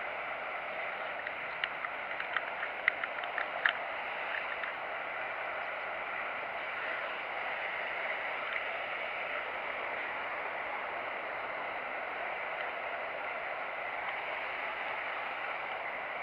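Steady outdoor hiss, with a quick run of small sharp clicks about two to four seconds in.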